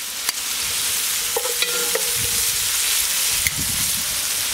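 Diced onions, carrots and celery sizzling steadily in hot oil in a cast-iron Dutch oven while being stirred and turned with metal tongs: the vegetables are being roasted before the tomato paste goes in.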